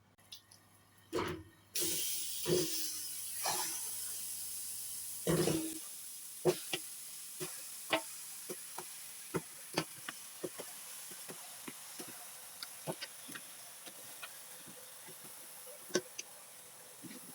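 Blended tomato-and-pepper mix hitting a hot pot: a sudden loud sizzle about two seconds in that slowly dies down, with scattered pops and crackles throughout. A few knocks from the pot and utensils come in the first few seconds.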